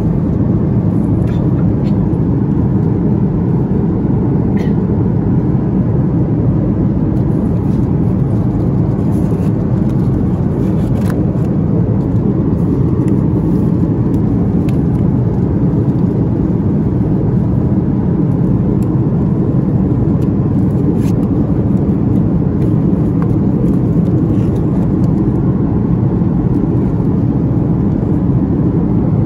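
Steady cabin noise inside a Boeing 737 MAX in flight: a low, even rumble of engines and airflow, with a few faint paper rustles and clicks as the in-flight literature is handled.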